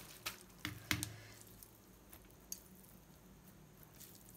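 Soft squishing of boiled noodles being mixed by hand in a metal mesh strainer, with a few light clicks in the first second.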